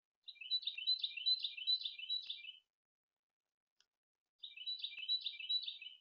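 A songbird chirping in two rapid bursts of quick, repeated high notes, each burst about two seconds long, with a pause between them.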